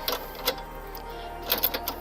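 Sharp metallic clicks from a wrench turning the nut on a car's sway bar link as it is loosened: one click about half a second in, then a quick cluster near the end. Background music plays underneath.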